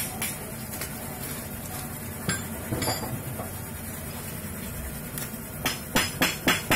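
Light metallic clinks of small motorcycle crankshaft overhaul parts being handled and set down: a few scattered clinks, then a quick run of about five sharper ones near the end.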